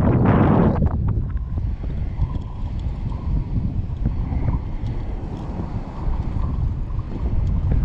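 Strong wind, about 20 mph, buffeting the microphone in a steady low rumble, with shallow surf washing around. A louder rush of noise comes in the first second.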